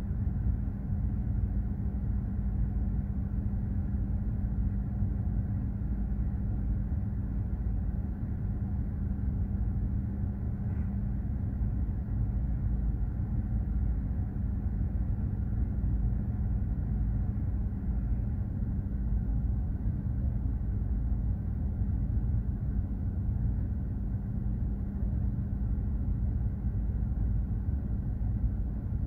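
Steady low rumble and hum of a container ship under way at sea, holding at an even level throughout.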